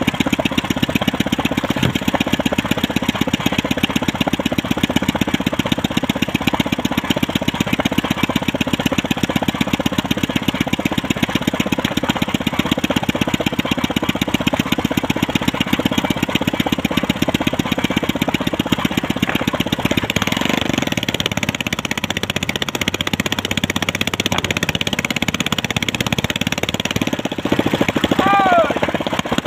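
Small fishing boat's engine running steadily at trolling speed, with a fast, even beat; its note changes about two-thirds of the way in.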